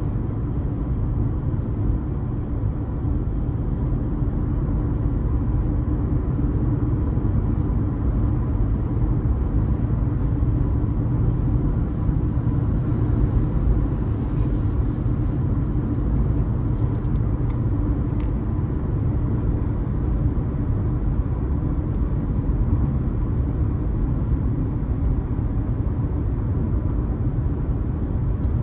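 Car driving at a steady speed: an even, low road-and-engine rumble without letup.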